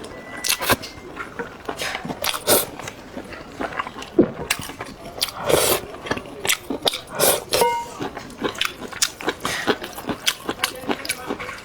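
Close-up eating sounds: irregular wet chewing and lip smacks, many small clicks in quick succession.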